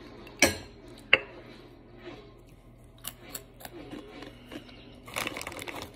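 Two sharp knocks of a small glass jar of hot sauce being handled, its lid and glass knocking, followed by a few light clicks and a short rustle near the end.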